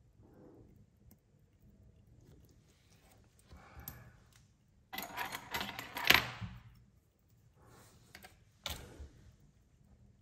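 Small metal watchmaker's tools and watch parts handled and set down on a bench: scrapes and clinks in short clusters. The loudest clatter comes about five to six and a half seconds in.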